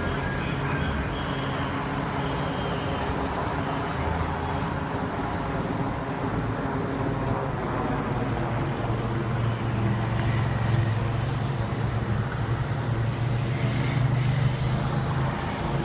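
Helicopter flying overhead, a steady drone that swells louder in the second half.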